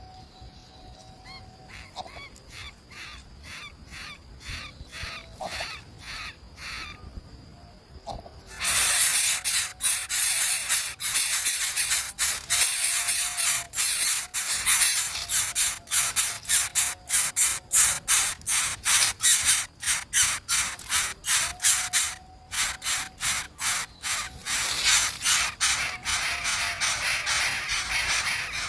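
Harsh, raspy calls of nestling birds begging, repeated three to four times a second. They are soft at first and become much louder and more insistent about eight seconds in, with one short pause about two-thirds of the way through.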